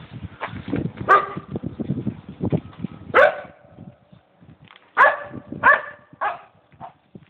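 Guard dog barking: one bark about a second in, another a couple of seconds later, then three quick barks close together. Low scuffs and knocks fall between the first two barks.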